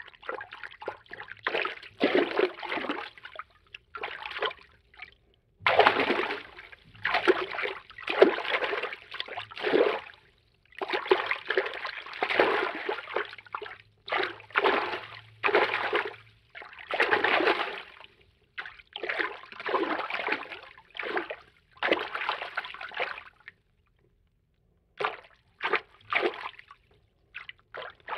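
Cartoon water-movement foley: a string of short swishing, sloshing water sounds, each about half a second to a second and a half long, separated by brief gaps, with a longer pause about 24 seconds in.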